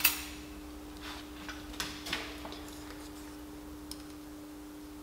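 Small metal hand tools clinking as they are picked from a lathe's tool tray: a few light, separate clicks over a faint steady hum.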